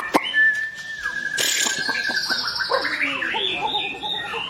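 White-rumped shama singing: a few sharp clicking notes, then a long held whistle with a rolling trill and a raspy rattle above it, followed by quick varied rising and falling notes.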